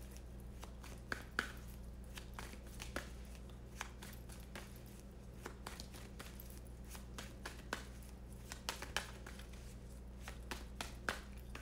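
A deck of tarot cards shuffled by hand: irregular soft snaps and taps of cards slipping against each other, over a faint steady low hum.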